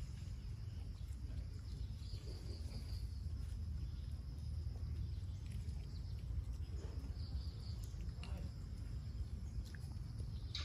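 Outdoor forest ambience: insects buzzing in a high band that swells in and out several times over a steady low rumble, with a few faint clicks and rustles.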